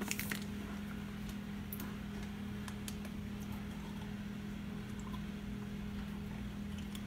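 A few light plastic clicks at the start as a coffee-maker lid is opened, then a steady low hum with faint ticks of handling.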